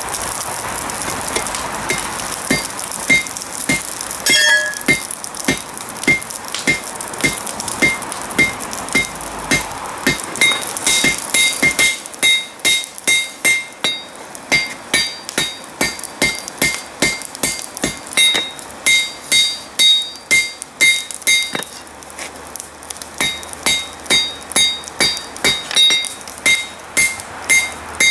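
Hand hammer striking red-hot flat steel bar on a Peter Wright anvil, forging a bend into it, each blow ringing the anvil. The blows come scattered at first over a steady rushing noise, which drops away about twelve seconds in. From there they settle into a steady rhythm of about two a second, with a brief pause late on.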